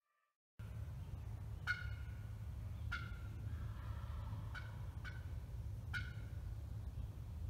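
Five short, sharp turkey calls spaced about a second apart, over a steady low rumble.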